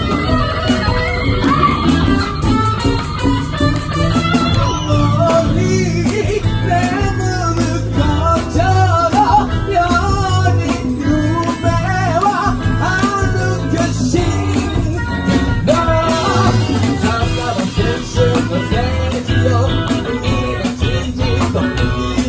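Live band playing an up-tempo pop-rock song with electric guitar, bass, drums and congas, and a male lead singer singing into a microphone over it.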